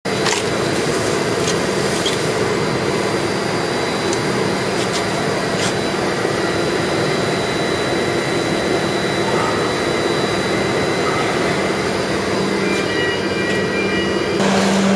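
Ice-slurry pumping rig running with a steady mechanical drone and hum while it pushes very high ice fraction slurry out through the pipe outlet. A few faint ticks sit over it, and it grows a little louder near the end.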